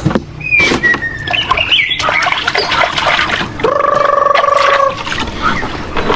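Farm poultry calling: short high peeps and squawks, then one long, drawn-out call for about a second just past the middle, with scattered clicks and knocks.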